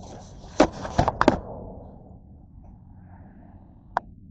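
Handling noise from the recording camera being picked up, shifted and set back down on a hard surface. There is a quick cluster of several thunks and rubbing about a second in, then a single sharp click near the end.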